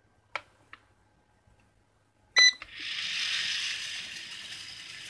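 A toy quadcopter drone being switched on: two small clicks, then a short electronic beep about two and a half seconds in, after which its propellers spin up into a steady high-pitched whirring hiss that eases off slightly.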